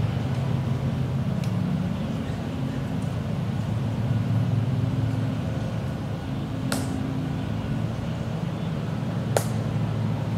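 Steady low mechanical hum, with two sharp clicks about two and a half seconds apart in the second half.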